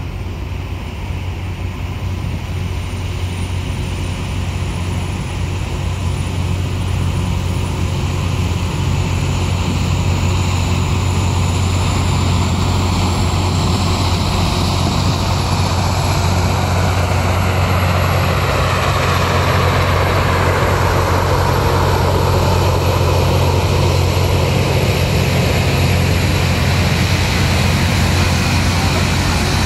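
Loram RG-404 rail grinder at work: a loud, steady roar of its grinding stones over a deep engine hum. It swells in loudness through the first ten seconds or so, then holds.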